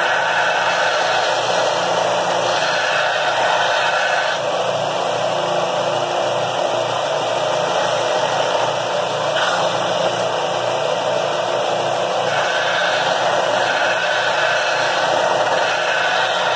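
Bench belt sander running steadily while a small flat piece of metal is held against its moving abrasive belt, grinding. The grinding tone brightens and fades several times as the contact changes.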